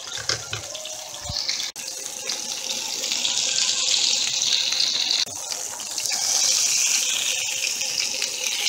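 Ribeye steaks sizzling in a hot pan as they sear standing on their edges: a steady hiss with light crackles, louder from about two seconds in.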